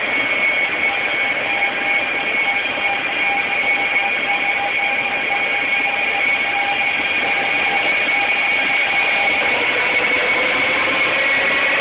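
E1 series double-decker Shinkansen pulling out of the station: a steady whine and rush of moving train, with a tone that begins climbing in pitch about nine seconds in as the train gathers speed.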